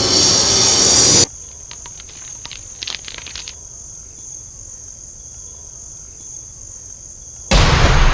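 Crickets chirring in a steady high-pitched trill, with a few faint clicks. A loud sound with a rising high whine cuts off abruptly about a second in, and a sudden loud burst of noise breaks in near the end.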